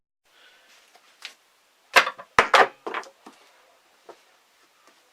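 Split wooden sticks of an elastic-powered bird perch trap knocking and clacking together: a quick run of sharp wooden knocks about two seconds in, with a few lighter taps around them.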